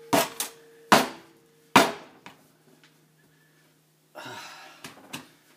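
Sharp knocks on a hard kitchen surface: three loud ones under a second apart with lighter taps between, a faint ringing tone beneath them; then a brief rustle and two light clicks near the end.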